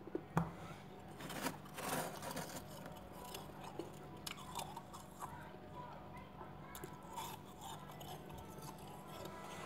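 Soft freezer frost crunching, with a few crisp, louder crunches in the first two seconds and lighter crackling after, over a steady low hum.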